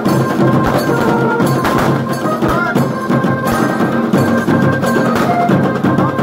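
Tasa drum band playing loud, busy drumming, with a few steady high notes held over the beat.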